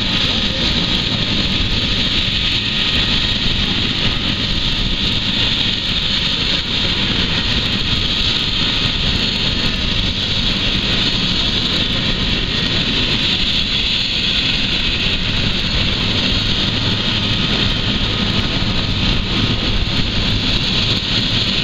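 Police rescue helicopter running steadily, a high turbine whine over the rapid low beat of the rotor.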